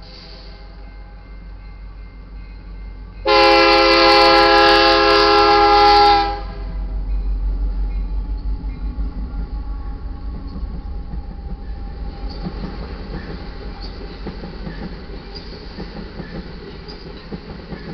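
Lead locomotive, an EMD SD70MAC, sounds one long air-horn blast of about three seconds, a few seconds in. The diesel locomotives then pass with a low engine rumble, followed by loaded iron ore hopper cars rolling by with a steady clickety-clack of wheels over the rail joints.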